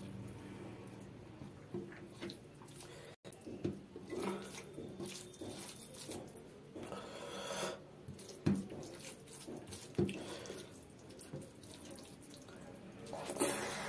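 Fingers squishing and mixing rice soaked in mung dal on a plate: irregular wet squelches with a few sharper clicks.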